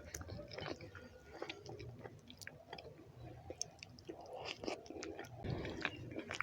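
Close-miked chewing of a mouthful of rice and beans: soft wet smacks and small clicks of lips and tongue, a little louder about two-thirds of the way through.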